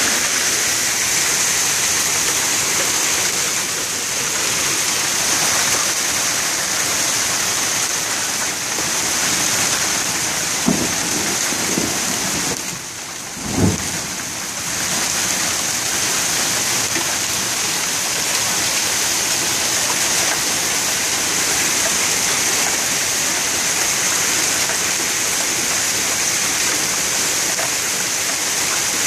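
A hail storm with heavy rain: hail and rain pelting pavement and parked cars in a dense, steady hiss. About halfway through the hiss briefly drops and there is a short low thump.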